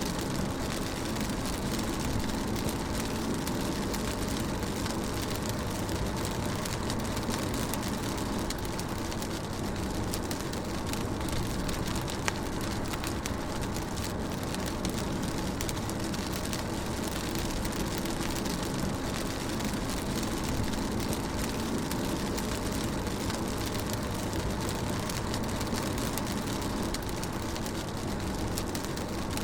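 Rain pattering on a car while it drives: a steady hiss of rain and tyres on wet road under a low engine and road hum, with many small drop ticks.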